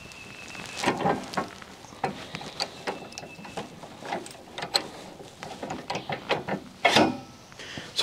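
Irregular metal clicks, knocks and scrapes as a cant hook holds a log on a portable band sawmill's steel bed while the steel log dogs are cranked down against it. A louder knock comes about seven seconds in.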